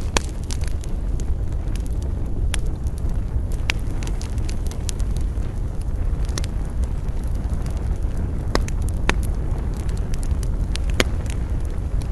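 Campfire burning, with sharp crackles and pops every second or two over a steady low rumble.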